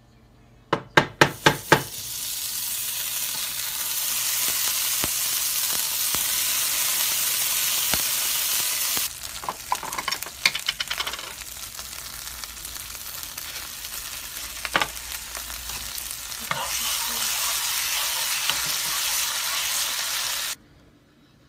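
Butter sizzling as it melts in a nonstick frying pan, stirred with a wooden spatula. A quick run of about six sharp taps comes about a second in, and a few clicks and knocks about halfway; the sizzle cuts off suddenly near the end.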